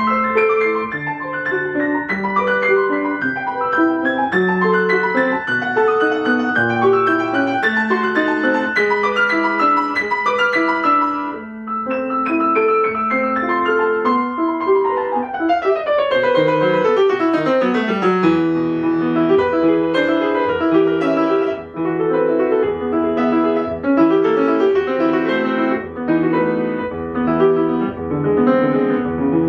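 Solo piano playing a classical piece, with a fast descending run about halfway through, after which the lower accompaniment continues under the melody.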